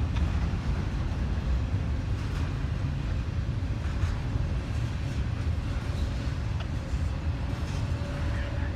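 Norfolk Southern freight train running past, a steady low rumble.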